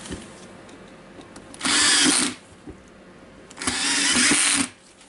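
Cordless drill-driver running in two short bursts, driving the screws that close a cordless drill's plastic housing.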